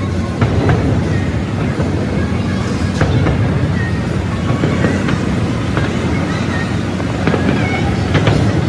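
Fireworks going off in a continuous barrage: a dense low rumble of booms with sharper bangs every second or so.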